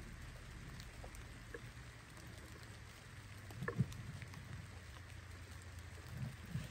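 Distant 4x4 crawling in low range over a rutted dirt trail: a low, steady engine rumble under scattered light ticks and patter. There is a sharp thump about four seconds in and a couple of softer thumps near the end.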